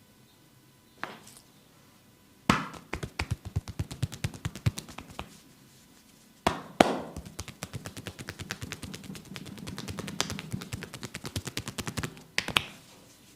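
Rapid percussive massage strokes, hands striking the body in quick succession about six times a second. They come in two runs of a few seconds each, each run opened by a louder slap. There is a single light tap about a second in and another sharp slap near the end.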